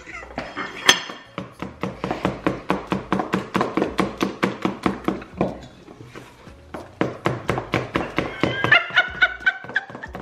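Knife chopping on a cutting board in quick, even strokes, about four or five a second, pausing briefly about halfway through. A short laugh near the end.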